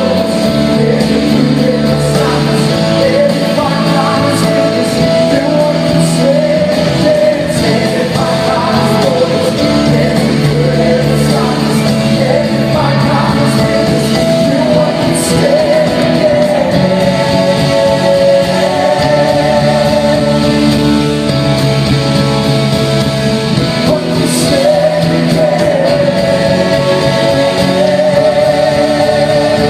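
Live worship band music with singing: a contemporary praise song played on band instruments, with a wavering sung melody over sustained chords.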